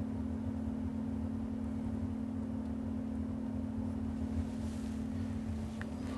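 Steady low hum from a small motor, with one held tone, and a faint tick near the end.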